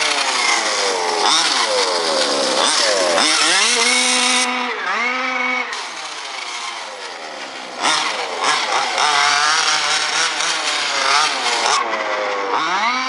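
MCD Evo3 Ultimate RC buggy's 30.5cc reed-valve two-stroke petrol engine revving up and down over and over as the buggy is driven. It is fainter for a couple of seconds past the middle, then loud again. The carburettor is not tuned in and the engine is running with far too much gasoline.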